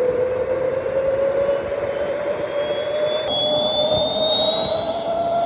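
Small jet engine running with a rushing roar and a strong whine that climbs slowly in pitch. About three seconds in, a second, much higher whine comes in and rises along with it.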